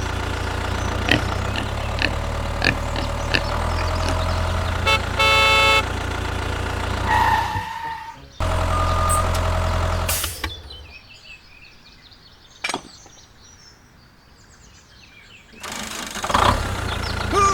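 Mini tractor engine running with a steady low drone, with a horn honking for about a second midway. The engine sound drops away about ten seconds in, leaving it much quieter apart from a single click, and louder sound returns near the end.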